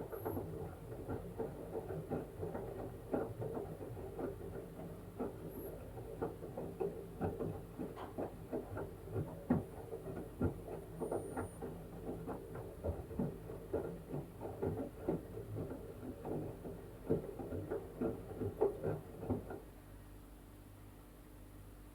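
LG washing machine drum turning a wet blanket in the wash cycle: a busy patter of soft knocks and sloshing over the steady hum of the motor. The tumbling stops about 20 seconds in, leaving only the low hum.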